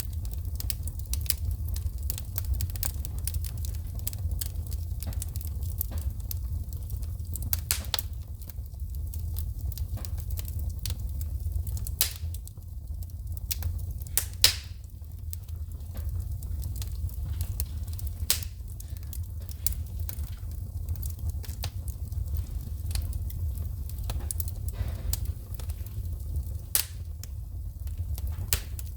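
Wood fire burning in a fireplace, crackling with frequent sharp pops and sparks snapping, over a steady low rumble. A handful of louder snaps stand out, the biggest about halfway through.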